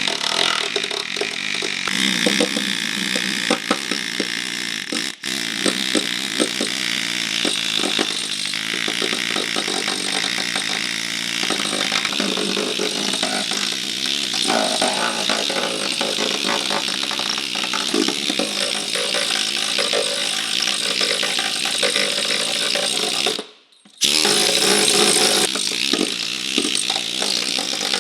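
Power tool grinding on car body sheet metal, a steady harsh whine in rust repair work. It breaks off for a moment near the end, then carries on.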